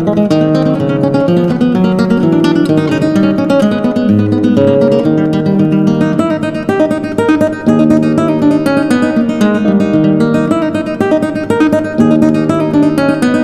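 Background music on acoustic guitar, strummed and plucked.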